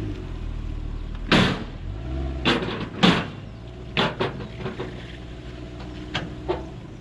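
A car being loaded up the steel ramps onto a flatbed tow truck: a series of sharp metal clanks and knocks, about seven in all and irregularly spaced, over a low steady engine hum.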